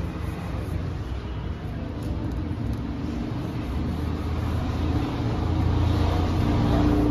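A steady low mechanical rumble that grows louder about five seconds in.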